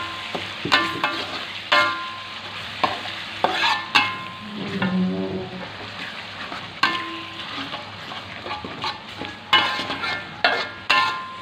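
Steel spatula stirring and scraping a spice paste and sweet soy sauce frying in oil in a wok. A steady low sizzle runs underneath about ten sharp clinks of metal on the pan, each ringing briefly.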